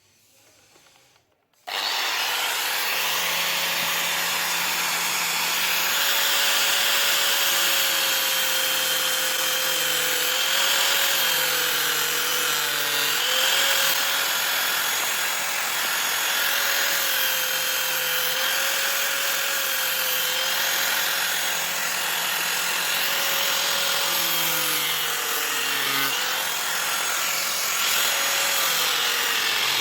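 Electric grinder running against the steel of a knife blade, starting about a second and a half in, its whine dipping and rising as the tool is pressed into the work.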